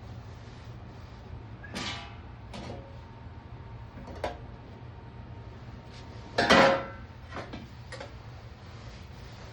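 A few sharp metallic clanks with short ringing tails, the loudest about two-thirds of the way through, over a steady low hum.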